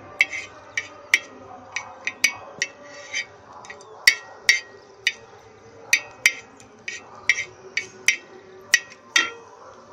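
Wooden spatula knocking and scraping on an iron tawa while green chilli pieces are stirred in a little oil: a string of irregular sharp taps, two or three a second.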